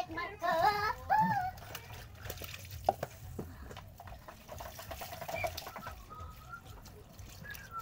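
Tap water pouring into a plastic basin of fresh sapsap (ponyfish) while hands swirl and rub the fish, a steady splashing with small knocks, one sharper click about three seconds in. A brief high-pitched voice sounds near the start.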